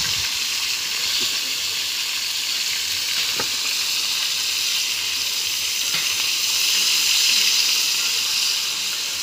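Whole fish frying in hot oil for escovitch fish: a steady sizzle, with two faint ticks.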